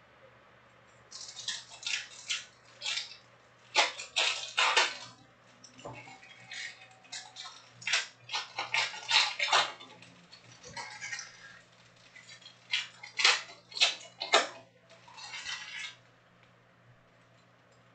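Foil trading-card pack wrappers crinkling and tearing as packs are handled and ripped open, in irregular bursts of crackly rustling that stop about two seconds before the end. A faint low hum runs underneath.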